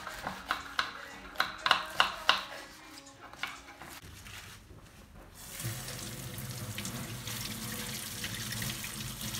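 Knife chopping green beans and spinach on cutting boards, a quick run of about ten chops in the first two seconds or so. About halfway through, a kitchen tap starts running steadily as spinach leaves are rinsed under it.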